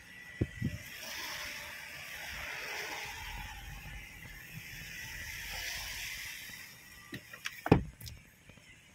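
Steady hiss of rain and traffic heard from inside a car's cabin, with a few sharp knocks: two shortly after the start and a louder cluster about three-quarters of the way through.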